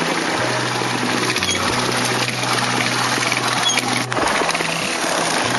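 Trials motorcycle engine running at low revs, its low hum cutting in and out under a steady hiss.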